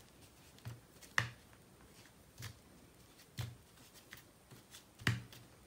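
Hands coating raw chicken drumsticks in a dry mix of flour and ground spices in a baking tray: faint, short pats and rustles, about six of them spread unevenly, the strongest about a second in and near the end.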